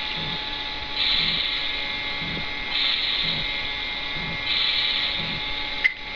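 Toy grill playing its electronic sizzling sound effect: a hiss that swells for about a second roughly every two seconds, with a sharp click near the end.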